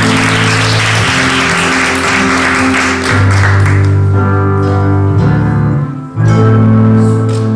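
Performance music with long held low notes, a hissing wash over the top for the first few seconds, and a brief drop in level about six seconds in.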